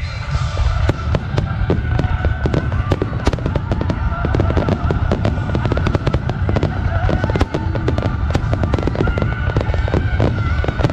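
Aerial firework shells bursting in a rapid barrage: many sharp bangs in quick succession over a steady low rumble.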